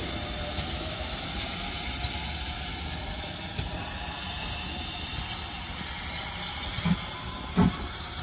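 GWR Manor class steam locomotive No. 7812 moving off slowly with a steady hiss of steam. Near the end come a few slow exhaust chuffs, about two-thirds of a second apart.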